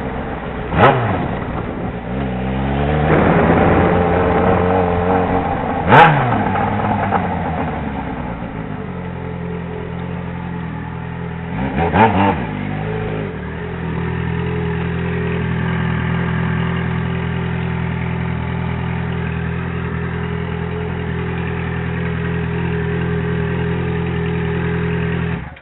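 Yamaha XJ6 motorcycle's inline-four engine revved in three quick blips, with a longer climb in pitch between the first two. It then runs at a steady pitch for about the last ten seconds and stops abruptly.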